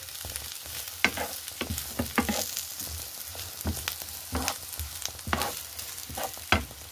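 Sliced onions sizzling in hot oil in a frying pan, with a steady hiss and a spatula scraping and knocking against the pan every second or so as they are stirred.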